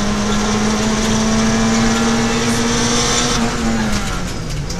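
Peugeot 106 XSi rally car's four-cylinder engine heard from inside the cabin, pulling hard with the revs climbing slightly. About three and a half seconds in the throttle is lifted and the revs fall, over steady road and tyre noise.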